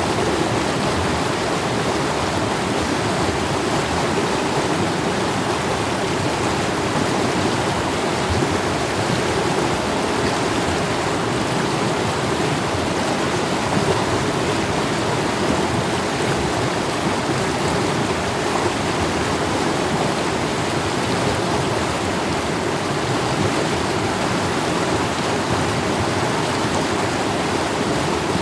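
Mountain stream water rushing and splashing over rocks, a steady, even flow.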